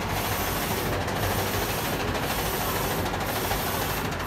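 DTF printer printing onto PET film: a steady mechanical running noise from the moving print carriage, its hiss dipping briefly about once a second with each carriage pass.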